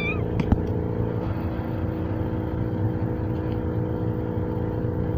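Steady low mechanical hum with several constant tones, and a couple of faint clicks about half a second in.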